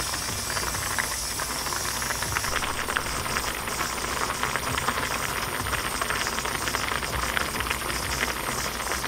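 Kimchi stew boiling hard in a small metal pot: a steady, dense crackle of popping bubbles with a hiss.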